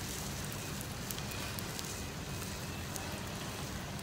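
Areolata sea snails grilling in their shells on a wire rack over hot coals: a steady sizzling hiss with scattered sharp crackles and pops.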